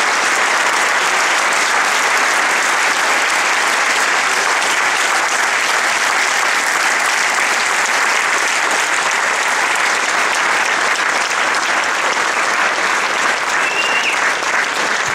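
Crowd applauding: a large group of people clapping continuously, easing off slightly near the end.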